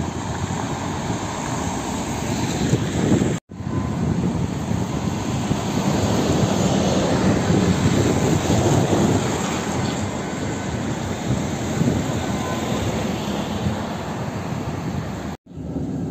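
Steady rumble of city traffic and a moving vehicle. The sound cuts out suddenly for a moment twice, about three and a half seconds in and near the end.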